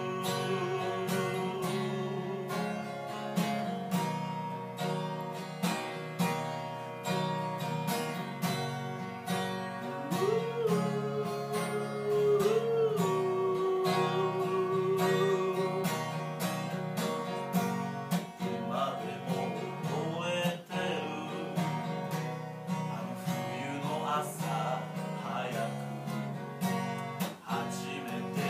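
Acoustic guitar strummed as the song's closing instrumental passage. A long wavering sung note is held at the start, and another runs from about a third of the way in to about halfway.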